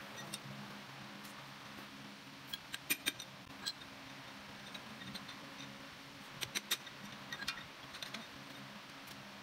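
Light metallic clinks and taps of hand tools and engine parts on a stripped-down engine block, in two short clusters a few seconds apart, over a faint steady hum.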